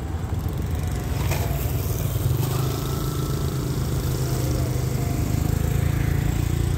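Low, steady engine drone that grows louder about two seconds in: the diesel-electric locomotive of an approaching express train, mixed with a motor scooter passing close by.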